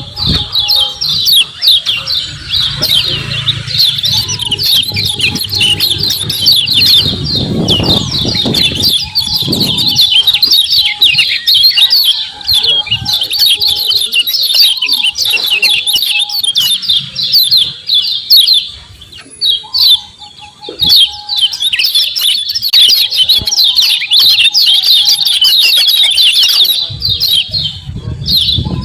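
Kecial kuning white-eye giving its rapid, high-pitched 'ciak ciak' chattering calls, a dense stream of short chirps that thins out briefly a little past halfway. A low rumble sits underneath for several seconds near the start.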